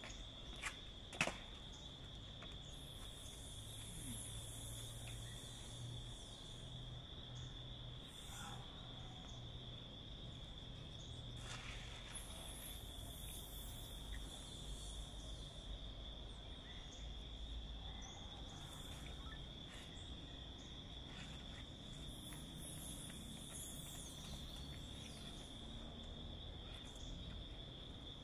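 Insects trilling outdoors: one steady high trill holds at a single pitch throughout, and higher buzzing calls rise and fade at intervals. A couple of sharp clicks sound about a second in.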